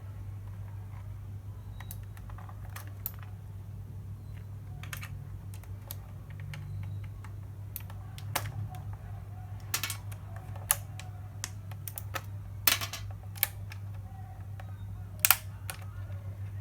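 Irregular sharp clicks and snaps of Outemu blue mechanical switches being pulled out of a Redragon keyboard, sparse at first and more frequent in the second half, the loudest snap near the end. A steady low hum runs underneath.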